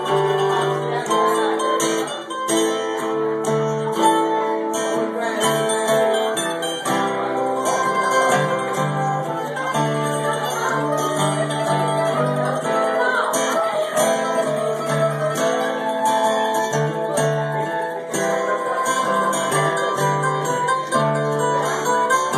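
Mandolin and acoustic guitar playing an instrumental passage together, the mandolin picking the melody over the guitar's chords.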